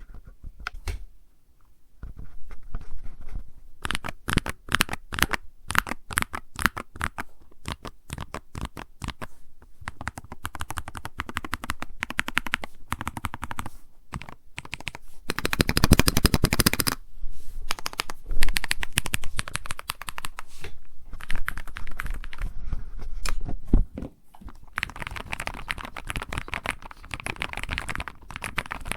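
Keyboard with Gateron Magnetic Jade Attraction Hall-effect switches and PBT keycaps being typed on: a rapid run of keystroke clacks. They are sparse at first, then steady, with a very fast flurry of keystrokes about halfway through.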